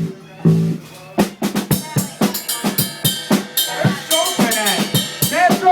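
Drum kit being played in a sound check. Two heavy low drum hits open, then from about a second in comes a quick, even run of hits at about four or five strokes a second.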